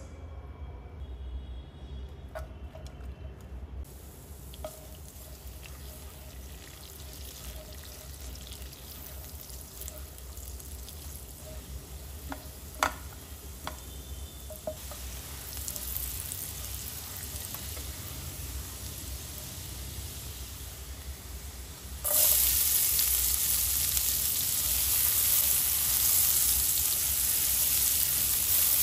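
Chopped garlic frying gently in oil and butter in a nonstick pan, stirred with a spatula, with a few light clinks of the utensils on the pan. About 22 seconds in, chopped onion goes into the hot fat and a much louder, steady sizzle starts.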